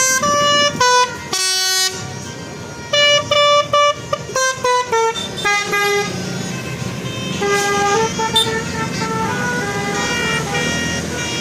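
Telolet musical bus horn playing a melody: quick phrases of loud horn notes stepping up and down in pitch, over the low rumble of the bus.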